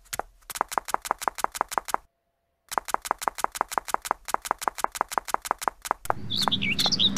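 Rapid, evenly spaced footstep sound effect, about six taps a second, with a short pause about two seconds in. About six seconds in it gives way to outdoor background with birds chirping.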